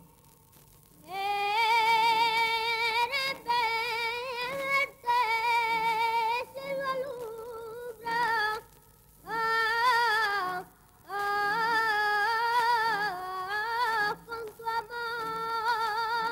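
Background music: a single high, wordless melodic line with vibrato, like a female voice or synthesised voice vocalising, in phrases with short pauses between them. It begins about a second in.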